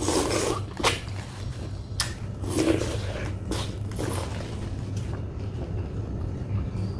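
Biting kernels off a piece of corn on the cob and chewing, with a few sharp crunching clicks and short wet bursts spread through the first four seconds.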